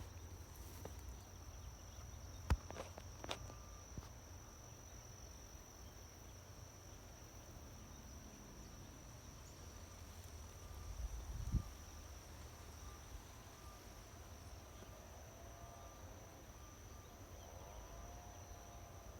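A steady, high-pitched insect trill over a low rumble. Two sharp clicks come about two and a half and three seconds in, and a dull thump about eleven seconds in.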